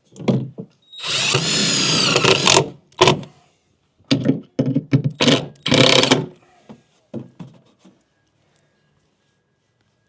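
Power drill running for about a second and a half, then pulsed in a string of short trigger bursts.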